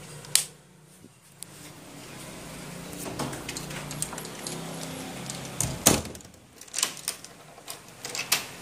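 Panasonic CS-PC7QKJ mini split air conditioner running, a steady low hum with a rush of air that comes up about a second and a half in. Several sharp clicks and knocks, like plastic being handled, sound over it, the loudest just before the six-second mark.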